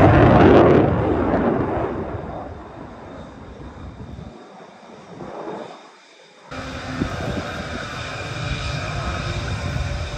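Saab JAS 39 Gripen fighter jet passing in flight: a loud jet rush at the start that fades away. About six and a half seconds in, the sound changes suddenly to the jet's engine running close by with a steady whine.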